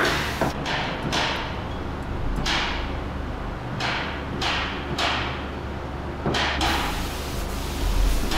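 Gravity-feed air spray gun hissing in repeated short bursts, roughly one to two seconds apart, as paint is sprayed onto a barrel-drum shell, over a steady low hum.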